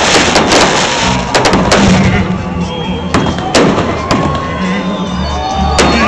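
Fireworks going off: a rapid run of sharp bangs and crackle in the first two seconds, then single bangs now and then. Music with a steady bass and crowd voices run underneath.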